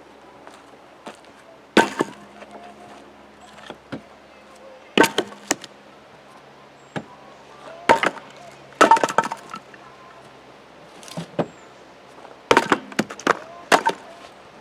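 Firewood being unloaded: pieces of wood knocking together and dropped in sharp, irregular clunks, some single and some in quick clusters of two or three.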